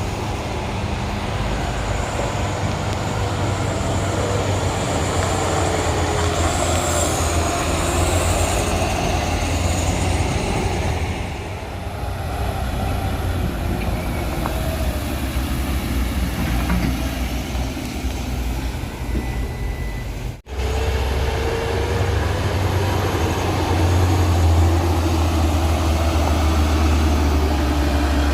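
Heavy truck diesel engines running under load on a steep climb: a steady low rumble, with a faint high whine during the first ten seconds. The sound drops out for an instant about twenty seconds in.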